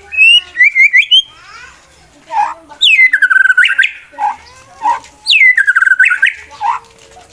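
Male white-rumped shama singing loud, varied whistled phrases: a quick run of notes, then two long swooping phrases that drop steeply and climb again, with short whistles between. This is the aggressive competition song that challenges a rival male to fight.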